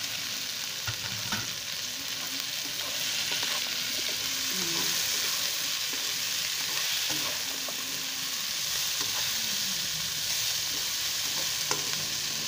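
Squash, string beans and onion frying in hot oil in a wok: a steady sizzle that grows a little louder about three seconds in, while a spatula stirs and scrapes them, with occasional clicks against the pan.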